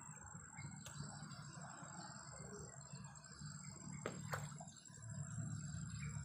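Insects trilling steadily at a high pitch over a low rumble, with a sharp click about a second in and two more about four seconds in.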